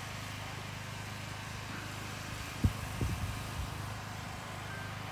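Steady low outdoor rumble, with one sharp knock about two and a half seconds in and a couple of fainter knocks just after, as the phone is moved.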